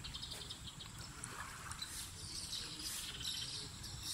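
Faint bird calls: scattered short high chirps, over a steady high insect trill.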